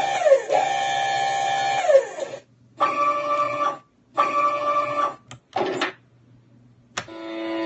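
Electronic sound module playing M35A2 army truck effects through a small speaker, as a string of short clips that each stop abruptly. First a sound that drops in pitch, holds steady and drops again; then two equal blasts; then short sweeps. Near the end a steady engine hum starts and grows louder.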